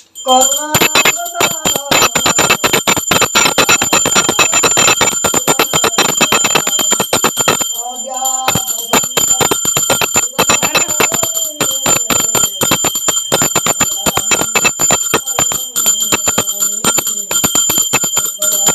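Brass puja hand bell rung rapidly and without a break during aarti, its strokes running together into a continuous high ringing. A man's voice chants at intervals over the bell.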